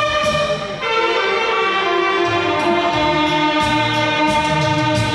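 A saxophone ensemble of alto and tenor saxophones playing a slow melody together, with a long held note in the second half and a moving lower line beneath.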